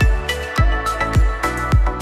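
Background music with a steady beat: deep kick-drum thumps about twice a second under sustained synth tones.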